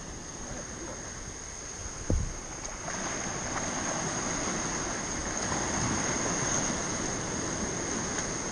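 Small surf waves breaking and washing up the sand close by, with wind buffeting the microphone; the wash grows louder about three seconds in, and a brief thump sounds about two seconds in.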